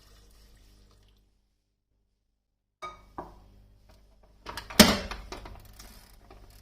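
Kitchenware being handled: two light knocks about three seconds in, then a loud clatter with a short ring about five seconds in, fading into smaller rattles.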